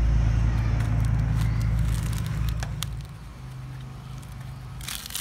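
Coconut husk crackling and tearing as the fibres are pulled off a sprouted coconut by hand, with a few sharp snaps and a crackly tear near the end. Under it, a loud low rumble with a steady hum eases off after about three seconds.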